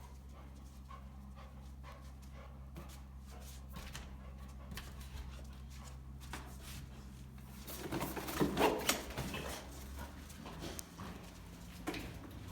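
Rottweilers play-fighting: light tapping and scuffling over a steady low hum, then a loud burst of aggressive growling about eight seconds in, with shorter growls after it.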